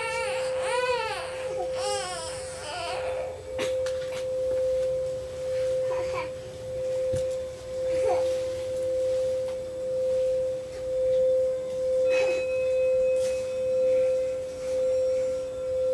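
Crystal singing bowl ringing one steady tone, swelling and fading about once a second. A transverse flute's sliding, bending phrase dies away about three seconds in. About twelve seconds in, a metal singing bowl rimmed with a wooden stick adds a higher ringing tone.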